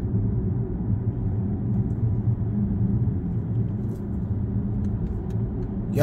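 Steady low rumble of a car driving, its engine and tyre noise heard from inside the cabin.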